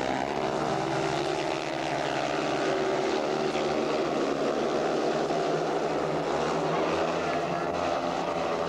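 Four speedway bikes racing together, their single-cylinder 500 cc methanol engines making one dense, steady drone of overlapping engine notes as the pack leaves the start and runs down the straight into the turn.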